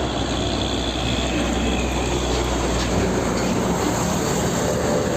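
Steady rush of water spraying and running over a muddy toy tanker truck as it is washed, with a steady low hum underneath.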